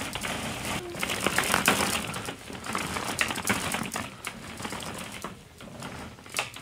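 Hollow plastic ball-pit balls clattering and knocking together in quick irregular clicks as they are moved about, fading towards the end.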